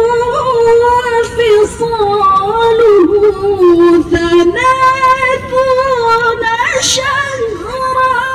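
A woman reciting the Quran in the melodic tilawah style, holding long ornamented vocal lines. The line dips lower a little past the middle, then jumps back up and carries on.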